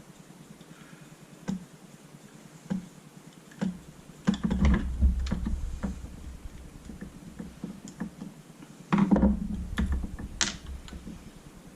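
Paintball marker parts being handled during disassembly: a few separate clicks, then two stretches of knocking and rubbing, about four and nine seconds in.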